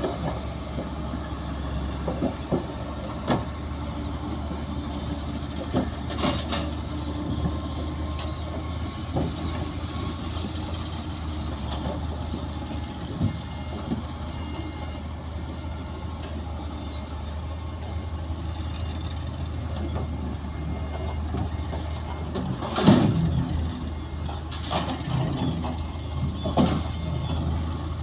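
Heavy diesel machinery running steadily, with scattered metallic clanks and knocks and a louder cluster of them near the end.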